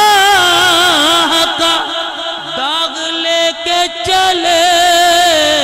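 A man singing a line of an Urdu naat in a slow, drawn-out style, holding long notes and bending them through wavering, ornamented runs.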